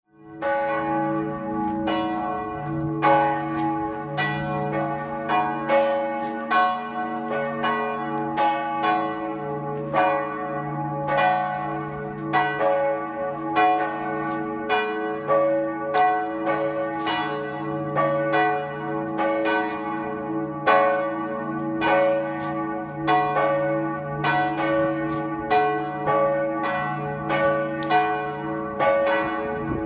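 Two church bells swung and rung together in a full peal (sammanringning). Their strokes fall in an uneven, overlapping pattern over a lasting hum.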